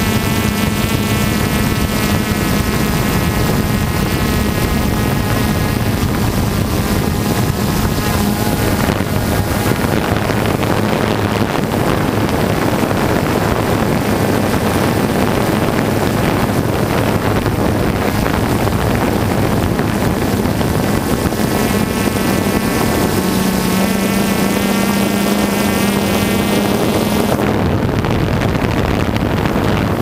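DJI Phantom 2 quadcopter's motors and propellers buzzing steadily in flight, mixed with wind rushing over the microphone. The pitched buzz sinks under the wind about nine seconds in and comes back stronger a little after twenty seconds.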